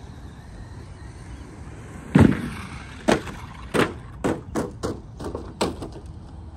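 Arrma Mojave 4S RC truck crashing after a jump: one heavy thud as it hits the ground about two seconds in, then about seven smaller knocks as it tumbles and bounces to a stop.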